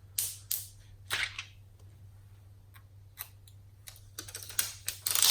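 Protective plastic film being peeled off a new touch-screen digitizer, crackling: a few crackles early on, scattered clicks, then a dense run of crackling near the end.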